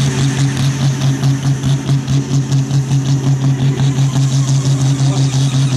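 Diesel engine of a sport-class pulling tractor, hooked to the sled, running loud at steady revs. The engine note pulses evenly about five times a second.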